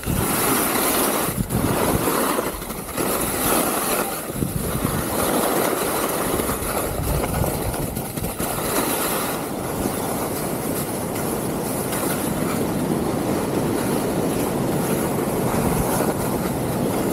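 Skis sliding and scraping over firm, dirty spring snow in a continuous loud hiss. It swells and dips a few times in the first seconds as the skier turns, then runs steadier.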